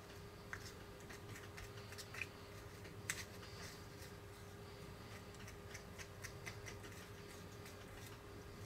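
Faint, scattered small clicks and taps of fingers working soft toy-kit dough in a small cup over a plastic mold tray, the sharpest about three seconds in, over a steady low hum.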